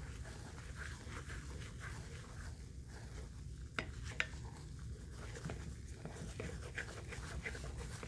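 Fluffy slime made with foamy hair mousse being stirred with a spatula in a glass dish: soft squishing and fine crackling of the foam, with two sharper clicks about four seconds in.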